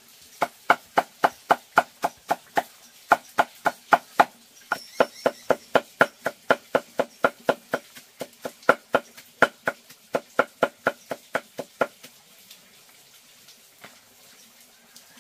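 Knife chopping food on a cutting board in a steady run of sharp strokes, about four a second. There are two short pauses along the way, and the chopping stops about twelve seconds in.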